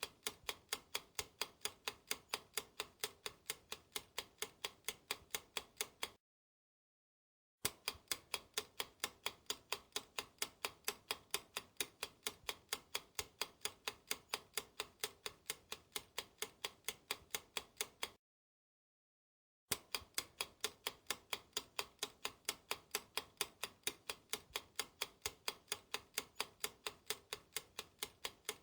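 Ticking clock or countdown-timer sound effect, sharp even ticks about four a second. It stops twice for about a second and a half of dead silence.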